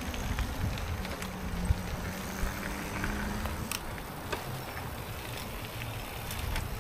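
Low, steady road rumble of riding a recumbent bicycle, with scattered small clicks and a faint steady hum through the first half.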